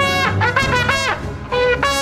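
Trombone playing a melody of short held notes, several of them sliding down in pitch as they end.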